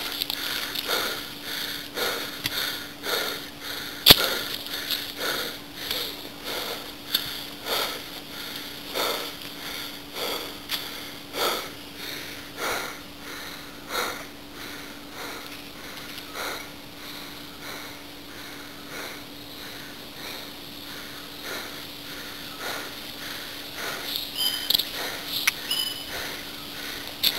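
Quick, rhythmic breathing through the nose close to the microphone, about one and a half breaths a second, growing fainter after the middle, over a faint steady hum. A few short high chirps near the end.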